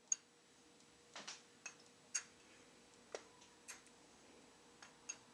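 Faint, irregular light clicks and taps, about nine in all, of a spice jar knocking against a metal measuring spoon as ground cinnamon is shaken out.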